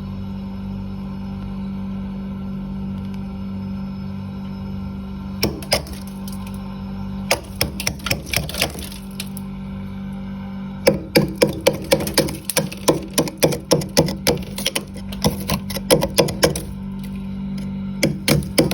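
Freezer frost being scraped in quick, scratchy strokes, starting about five seconds in and coming thickest in the second half. A steady low hum runs underneath.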